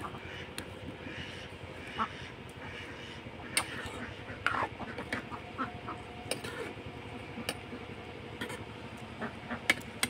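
A metal ladle scraping and knocking in an iron wok while greens and chillies simmer over a wood fire: scattered sharp clicks over a steady hiss.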